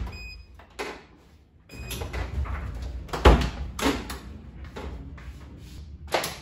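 Household doors being handled and shut: several separate knocks and thumps, the loudest about three seconds in. A low steady rumble starts about two seconds in.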